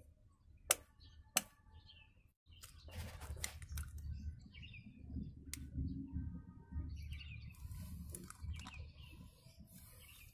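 Two sharp taps of a spoon against an eggshell, then crackling and scraping as the shell is broken open over the blender cup. Small birds chirp in the background.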